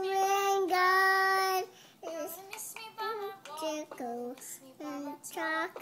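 Young girl singing a song, holding one long note in the first couple of seconds, then a short break about two seconds in before shorter sung phrases.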